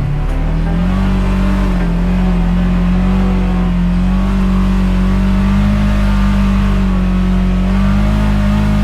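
Side-by-side (UTV) engine running at high, steady revs while driving. The pitch climbs back up in the first moments after a brief dip, then holds nearly constant with a slight waver.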